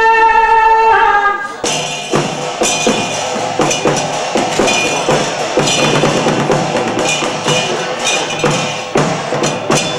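A performer's high sung note, held and bending, ends about a second and a half in. A Chinese opera percussion ensemble then takes over with a fast, dense clatter of wooden clappers and small cymbals over ringing gongs.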